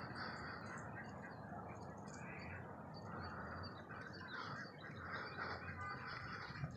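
Faint outdoor background noise with birds chirping.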